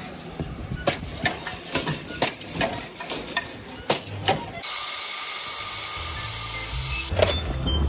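Spot-welding machine joining the crossings of a steel wire-mesh panel: a string of sharp clicks and clanks, a few a second. About four and a half seconds in, this gives way abruptly to a steady hiss from metalwork throwing sparks on the mesh.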